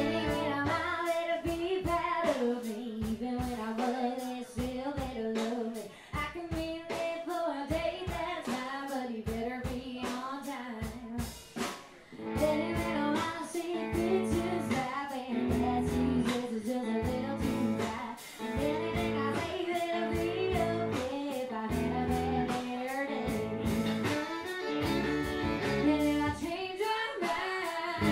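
A woman singing a country song live into a microphone, backed by guitar and a drum kit with a steady beat.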